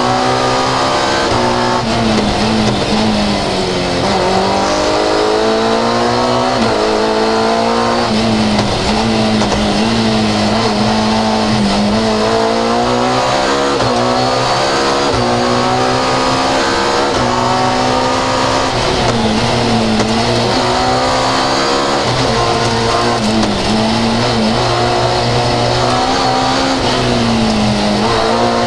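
Fiat 131 rally car's engine heard from inside the cabin, revving hard under load: its pitch climbs and then drops back every few seconds as the driver changes gear and lifts off.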